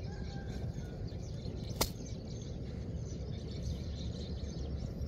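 Low, steady rumbling outdoor background noise with a single sharp click a little under two seconds in.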